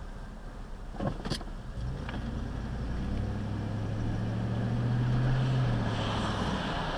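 Car engine heard from inside the cabin, its steady low hum building after about two seconds and fading near the end as road noise rises. Two sharp clicks about a second in.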